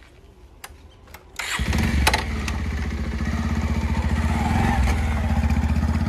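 A few small clicks, then a motorcycle engine starts suddenly about one and a half seconds in and keeps running steadily as the bike pulls away.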